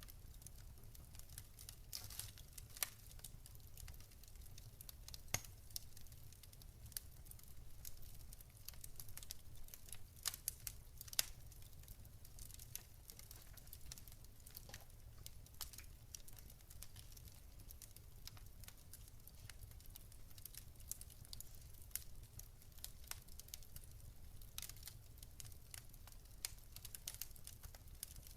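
Faint crackling fire: irregular sharp pops and snaps, some louder than others, over a steady low rumble.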